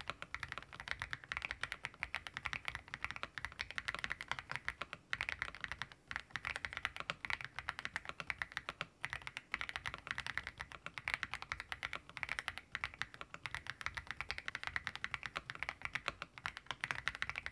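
Continuous typing on an AULA F87 Pro mechanical keyboard fitted with AULA yellow V3 switches: a quick, steady stream of keystrokes, not very loud and moderately clacky.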